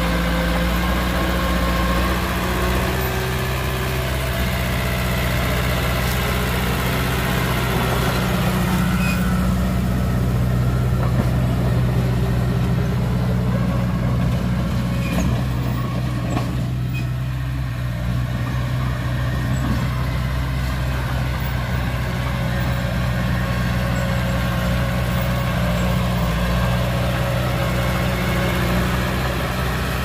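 Heavy diesel engine of earthmoving machinery running steadily, a deep, even drone without breaks.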